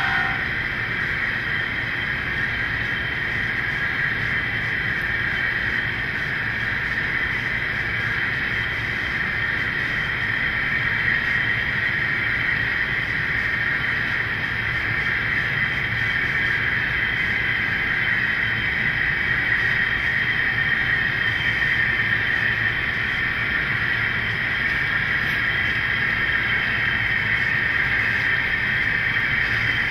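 Model-railroad diesel locomotives running steadily along the track: a steady engine drone and hiss from the sound-equipped locomotives' small speakers, mixed with the train rolling on the rails.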